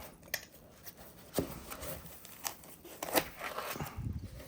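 Plastic packaging crinkling, with several sharp clicks and knocks, as espresso machine accessories such as the filter baskets are unwrapped and handled.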